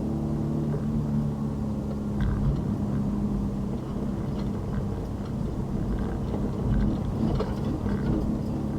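Car driving on a city road: a steady engine hum with low road rumble, the hum fading and returning, and a few faint clicks.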